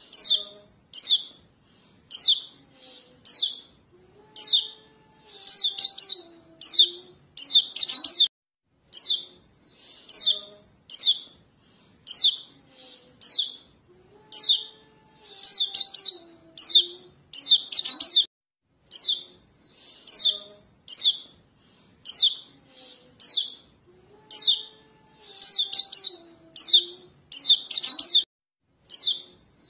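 Young yellow white-eyes (kecial kuning) giving short, high begging chirps, about one to two a second, calling for their parents, as used for a bird-lure recording. The sequence repeats in a loop about every ten seconds, with faint lower whistles underneath.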